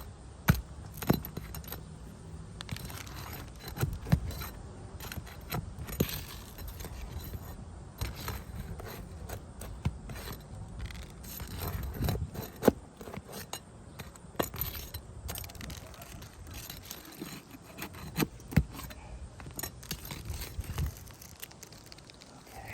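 Scattered clicks, knocks and scraping of hand work on asphalt roof shingles as the damaged shingle is worked free. The sharp taps come irregularly, a second or two apart, over a low background rumble.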